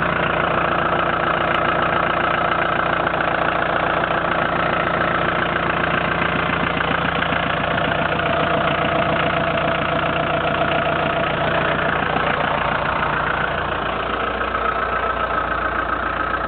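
Ford Escort Mk3 1.6 D's 1.6-litre diesel engine idling steadily, with an even, fast rhythm.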